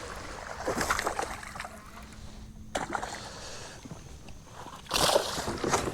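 A hooked largemouth bass splashing and thrashing in the water beside the kayak as it is landed, in short bursts with the loudest near the end.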